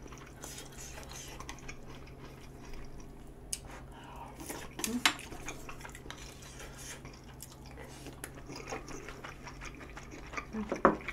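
Chopsticks and a spoon clicking and scraping against bowls while eating tteokbokki, with soft chewing and a few sharper clinks. A faint steady low hum lies underneath.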